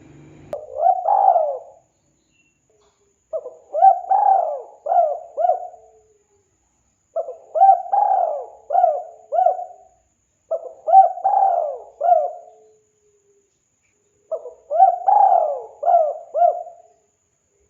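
Spotted dove cooing: five phrases of several arched coo notes each, repeated every three to four seconds with silent gaps between them.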